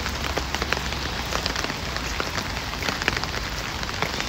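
Steady rain: a continuous hiss of falling rain with many sharp, close raindrop hits scattered through it.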